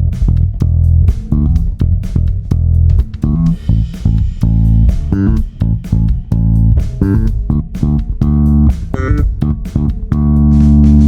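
Five-string electric bass with EMG 40DC and Aguilar OPB-2 pickups being played: a run of quick plucked notes, then a held note left ringing from about ten seconds in.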